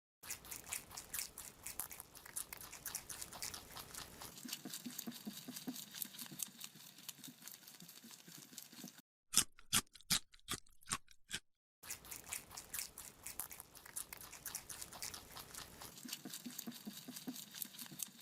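A rabbit chewing a carrot: rapid, crisp crunching bites in a steady run. About halfway through comes a short stretch of a few louder, sharper crunches between brief gaps.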